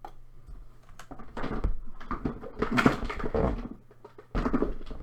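Toys and packaging being handled and rummaged through: irregular rustling and light knocks, heaviest in the middle and again near the end, with a low rumble of handling.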